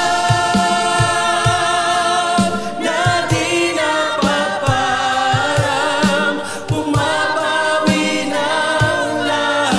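Tagalog praise-and-worship song sung by a group of singers in harmony, with band accompaniment and a light, steady drum beat.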